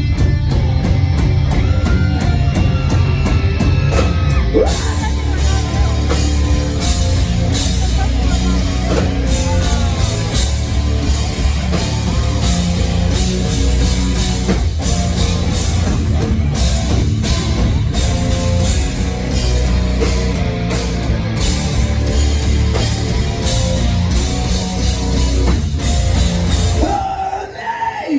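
Live rock band playing loud, with distorted guitars, bass, a drum kit and singing, in a punk-rock style. The music drops out briefly near the end before coming back in.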